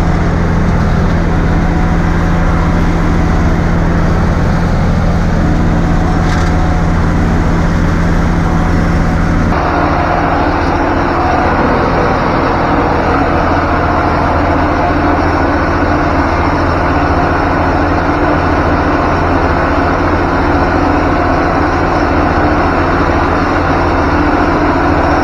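Massey Ferguson 254 S tractor engine running steadily under load while mowing a meadow, heard loud from inside the cab. Its tone changes abruptly about ten seconds in, then runs steady again.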